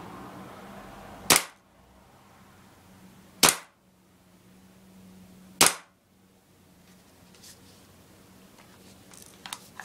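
Three shots from a propane-powered gas blowback airsoft M1911 pistol, each a sharp crack, about two seconds apart. A few faint clicks near the end.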